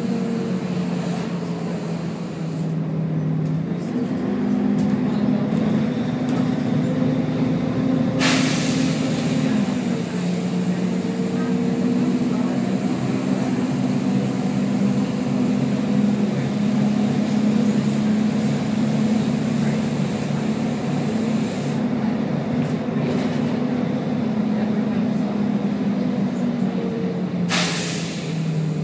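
Volvo B10BLE bus's diesel engine running with its cooling fan on, the engine note stepping up and down as the Voith automatic gearbox changes and the engine takes load. Two sharp compressed-air hisses, about 8 seconds in and near the end, each lasting about a second.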